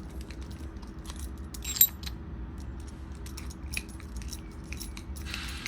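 Small metal collar hardware (screw post, screw socket and buckle) clicking and clinking as it is handled and screwed together, with one sharp, ringing metallic clink about two seconds in.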